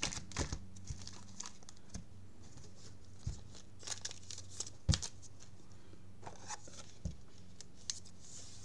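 Thin plastic card sleeves crinkling and rustling as a trading card is handled and slid into them and into a rigid plastic holder, with scattered small clicks of plastic, the sharpest about five seconds in.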